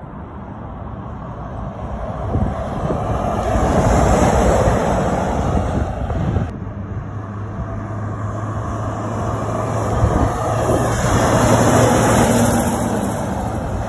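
Diesel articulated lorries driving past one after another, engine and tyre noise swelling as each goes by. A Volvo tractor unit with a fridge trailer passes close about four seconds in. A second lorry's engine hum grows as it approaches, and it passes loudly near the end.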